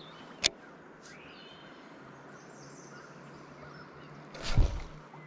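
Outdoor ambience with faint bird chirps, a single sharp click about half a second in, and a loud low thump near the end.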